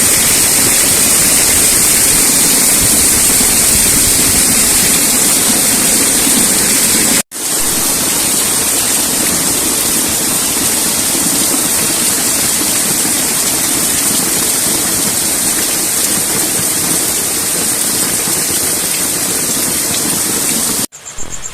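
Heavy rain pouring, with a torrent of runoff water rushing: a steady, loud hiss of water that breaks off for an instant about seven seconds in.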